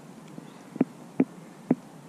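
Three short, soft knocks, irregularly spaced about half a second apart, over a faint hiss.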